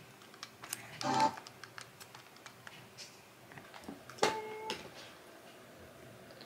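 Quiet tabletop eating sounds: a metal spoon stirring and knocking in a plastic tub of thick sauce, and a beer can being handled. They come as scattered small clicks and taps, with a brief ringing tone about four seconds in.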